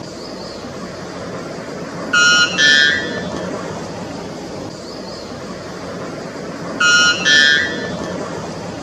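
White bellbird (Procnias albus) calling: two loud two-note calls, about two seconds in and again about seven seconds in, the second note of each pair a little higher than the first, over a steady background hiss.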